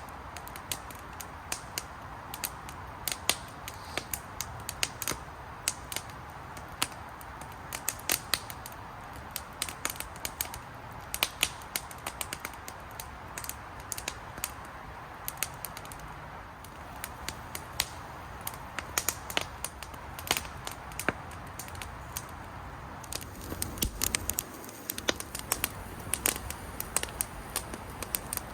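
A fire crackling, with many sharp, irregular pops over a steady hiss, as a worn cloth flag burns.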